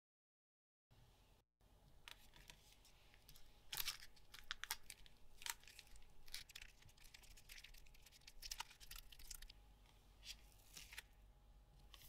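Strip of tape being pulled and pressed by hand onto a silicone resin mold: a string of short, scratchy rasps and crackles, starting about a second in.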